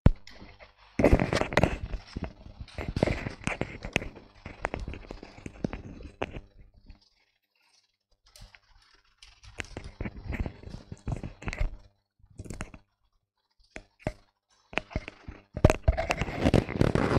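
Microphone handling noise as a new microphone is connected and fitted: irregular clicks, knocks and rubbing close on the mic, starting abruptly out of dead silence. The noises come in clusters, with a pause about seven seconds in and louder handling near the end.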